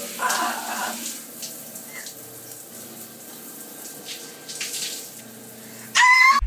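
Shower spray running steadily onto a person in a tiled shower stall. A man's brief voice comes in the first second, and a loud, high scream comes near the end.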